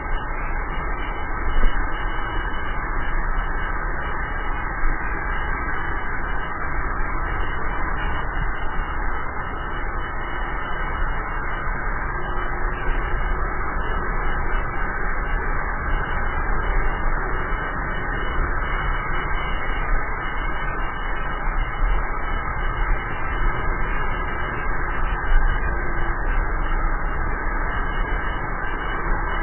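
Steady rush of wind buffeting the camera microphone, mixed with road noise from a drift trike rolling fast downhill on asphalt, with a couple of brief bumps.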